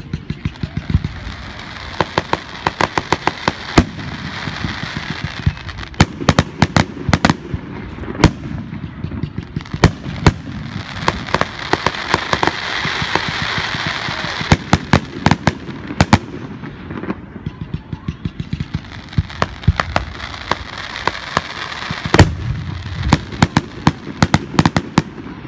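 Fireworks display: aerial shells and rising comets bursting in rapid volleys of sharp bangs, several clusters of shots a few seconds apart.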